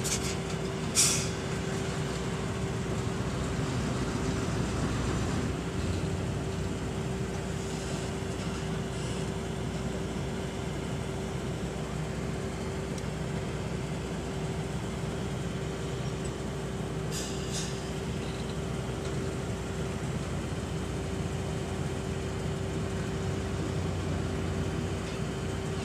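Hyundai dump truck's diesel engine running steadily as the loaded truck moves slowly, a low drone with a constant hum. Two short hisses cut in, one about a second in and one about two-thirds of the way through.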